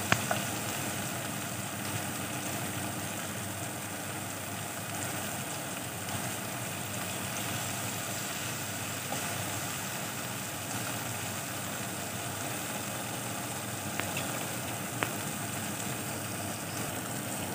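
Sliced onions and cherry tomatoes sizzling steadily in a frying pan, with a few light clicks of a wooden spatula against the pan.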